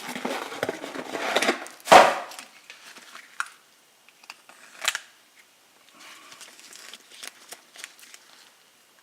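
New brake pads and their packaging being handled: rustling and clattering, a sharp knock about two seconds in, then scattered small clicks and taps.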